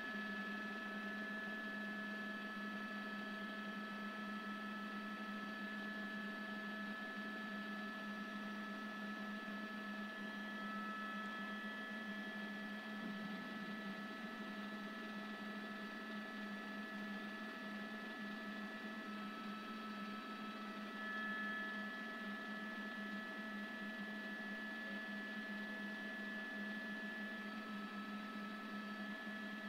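A steady hum made of several constant tones, one low and a few higher, holding unchanged throughout.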